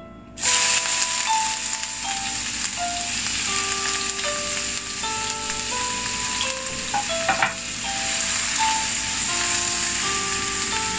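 Chopped onions dropped into hot mustard oil in a frying pan, sizzling. The sizzle starts suddenly about half a second in and holds steady, with a couple of sharp clicks around seven seconds in, over light background music.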